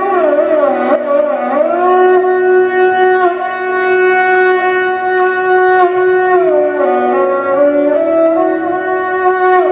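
Sarangi bowed solo: a singing melodic line that glides into a long held note, then slides down to lower notes about seven seconds in and climbs again near the end.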